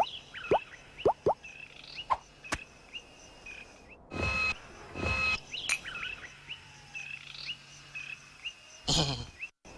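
Cartoon sound effects over a birdsong background: repeated short bird chirps throughout, a few quick plops in the first couple of seconds, and short bursts of noise about four and five seconds in and again near the end.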